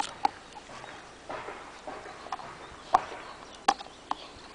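Squeaky dog toy giving a handful of short, sharp squeaks, spread out, as a Kerry Blue Terrier chews it while rolling on the grass, with some soft rustling in between.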